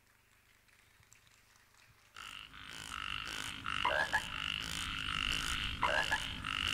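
Quiet for about two seconds, then a backing track starts with frog-like croaking effects repeating about twice a second over a low beat. Short rising croaks sound a few times.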